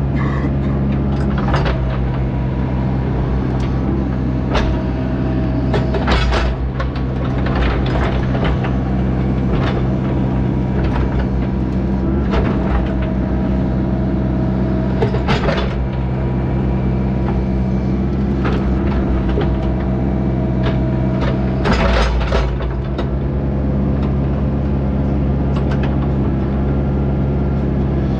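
A construction machine's diesel engine running steadily at working speed, with sharp knocks and clanks every few seconds. The clanks are heaviest about six seconds in and again near three-quarters of the way through.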